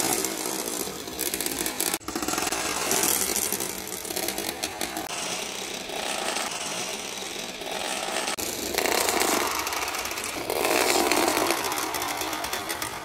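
A long train of marbles rolling nose to tail through clear plastic tubing, a continuous dense rattle of marbles clicking against each other and the tube walls. The tone shifts abruptly a couple of times as the run passes through different track sections.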